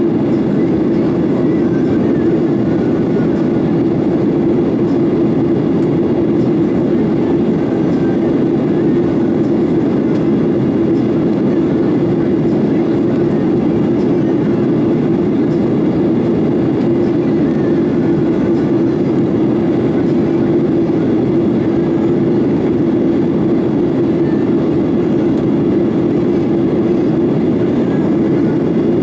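Steady cabin noise of a Boeing 737-900ER: the deep, even drone of its CFM56-7B jet engines and the airflow, heard from inside the cabin, holding level with no change in pitch.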